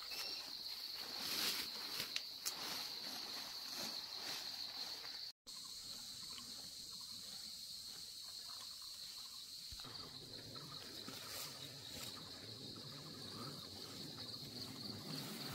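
Insects chirring in one steady, unbroken high-pitched drone, with a few brief soft noises in the first few seconds.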